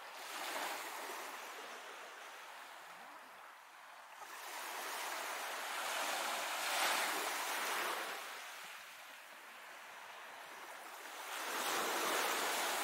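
Small sea waves washing onto a sandy, stony beach, rising and falling in slow swells a few seconds apart, loudest about seven seconds in.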